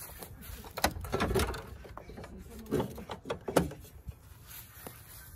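Broken plastic front-end pieces of a wrecked 2012 Volkswagen Passat being pulled and handled by hand: a scatter of plastic clicks, knocks and rattles, the sharpest about a second in and again after three seconds.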